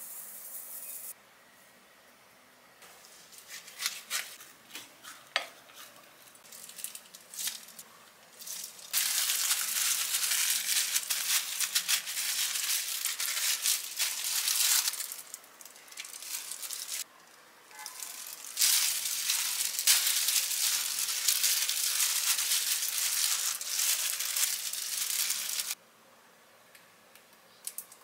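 Sesame seeds pour briefly into a glass bowl of rice, followed by a few light taps. Then come two long stretches of crinkling and rustling from disposable plastic gloves as the hands spread rice over the laver and lay perilla leaves on it.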